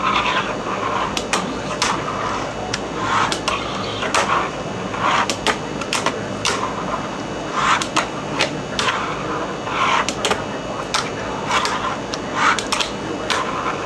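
A fingerboard being flicked, popped and landed on a wooden desk: many irregular sharp clacks as the deck and trucks strike wood, with short rolling and scraping runs as it slides and grinds along a small wooden bench obstacle.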